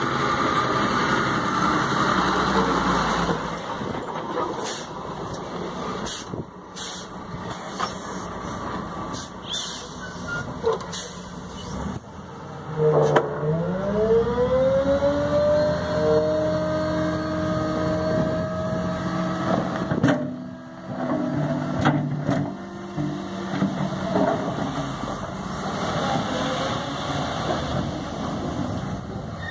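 Diesel engine of a Volkswagen Constellation dump truck running alongside a motor grader's engine. About halfway through, the truck engine revs up and holds a steady higher pitch for about seven seconds, then drops back, as it powers the hoist raising the tipper body to dump its load of earth.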